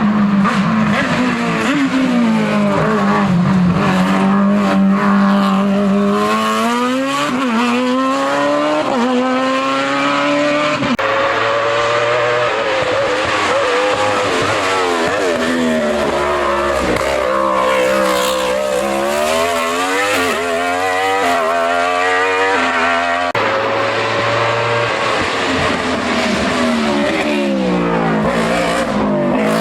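Hill-climb race car engine revving hard. Its pitch climbs and drops abruptly at each upshift, then falls away and picks up again through the corners.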